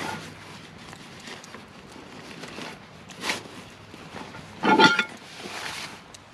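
Fabric tactical backpack being handled and rummaged through: rustling of the pack's fabric and gear shifting inside, with a short scrape a little after three seconds and a louder scrape just before five seconds.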